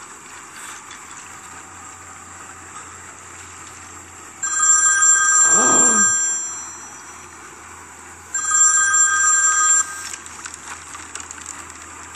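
Smartphone ringtone ringing twice, each ring a steady electronic tone about a second and a half long, the rings about four seconds apart.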